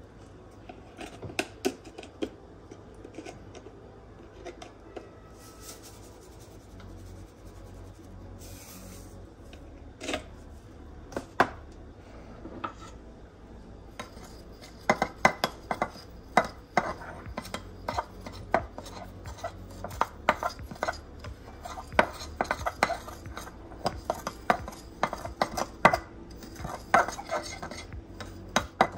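Metal utensil stirring dry fish-fry batter mix in a glass dish, scraping and clinking against the glass. There are a few scattered taps at first, then quick, irregular clinks from about halfway on.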